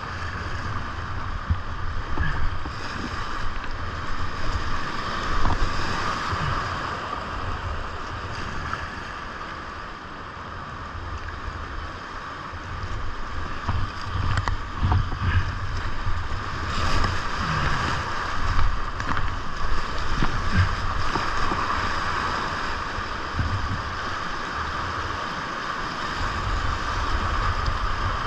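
Whitewater rapids rushing steadily around a kayak, with splashes from paddle strokes scattered through and a low buffeting rumble on the microphone.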